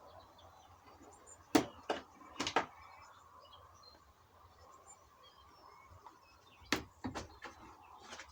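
A few sharp knocks and clicks in two clusters, one about a second and a half in and another near seven seconds, with faint bird chirps in the background.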